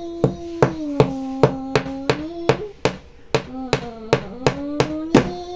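Sharp knocks repeated at a steady pace, about three a second, over a held humming tone that slides slowly down and back up.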